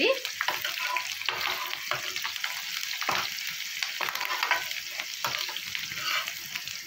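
Green chillies, onion and curry leaves frying in hot oil in a metal pan: a steady sizzle full of small crackles. A metal ladle scrapes along the pan as it stirs them.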